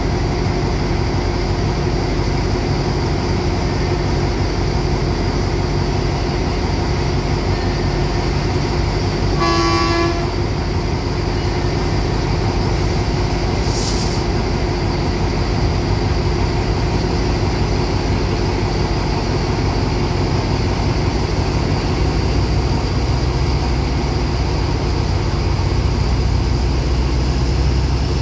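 Two Alsthom diesel-electric locomotives running at the head of a passenger train, with a short horn blast about ten seconds in and a brief hiss a few seconds later. Near the end the low engine drone grows stronger as the train starts to pull away.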